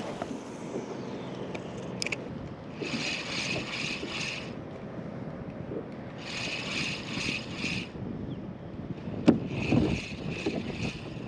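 Spinning reel cranked in three short bursts of about a second and a half each, its gears giving an even, fine whirring tick, over wind and water lapping at a kayak. A single sharp knock about nine seconds in.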